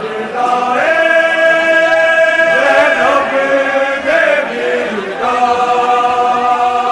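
Mourning chant (noha) sung in long, drawn-out held notes that step up and down in pitch.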